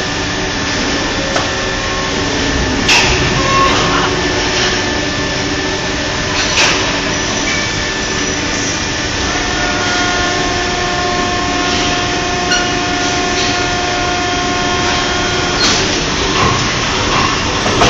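Steady running noise of injection-moulding machines and multi-axis servo robots, broken by a handful of sharp clicks and knocks. A faint steady whine sounds through the middle.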